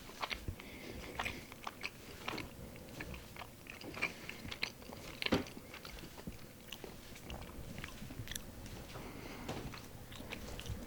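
Close-miked eating of bread: biting and chewing, with irregular crunchy crackles of the crust, the loudest crunch about five seconds in.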